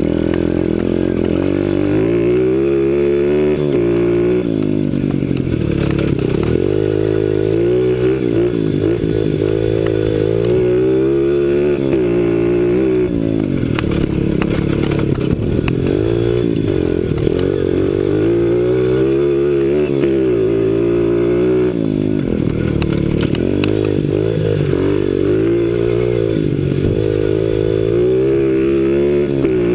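2008 CRZ 125 Pro pit bike's four-stroke single-cylinder engine under way, its revs climbing and dropping again and again every few seconds as the throttle is worked and the gears change.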